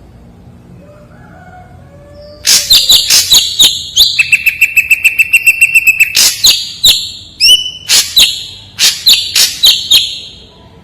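Ashy drongo singing: after a quiet start, a rapid run of loud, sharp chips begins, then a steady held whistle for about two seconds, followed by more spaced sharp notes that stop shortly before the end.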